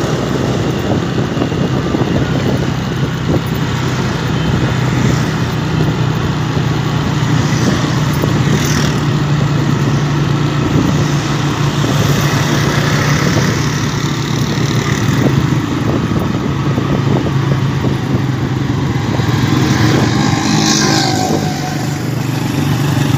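Small commuter motorcycle's engine running steadily at cruising speed, heard from the rider's seat.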